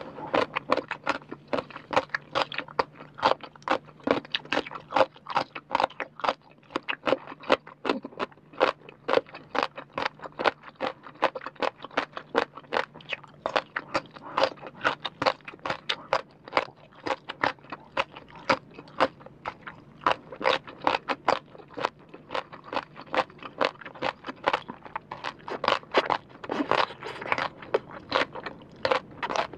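Close-miked crunching and chewing of crisp rau tiến vua (celtuce stem strips), a rapid run of crackly bites that carries on without pause.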